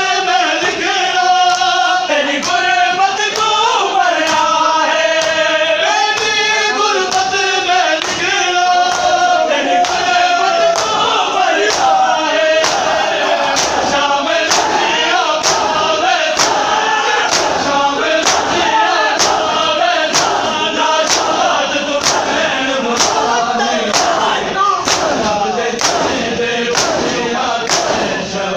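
Men chanting a noha (mourning lament) in chorus while beating their bare chests in unison (matam). The hand strikes are heard as regular sharp slaps, a little over one a second, growing clearer and more even partway through.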